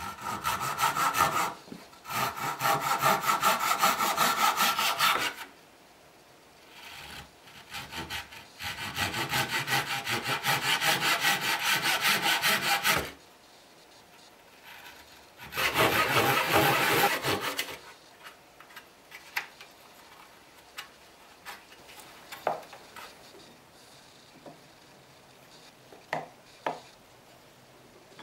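Japanese-style pull saw cutting a slot in a wooden rail clamped in a bench vise: rapid back-and-forth strokes in five bursts with short pauses between them. For the last ten seconds there are only scattered light taps and clicks.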